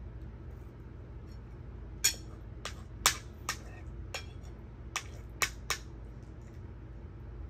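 Tableware clinking during a meal: about eight sharp clinks and taps over some four seconds, a few with a short bright ring.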